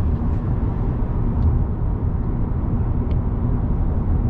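Steady low rumble of road, tyre and engine noise heard inside an Audi's cabin while cruising at highway speed.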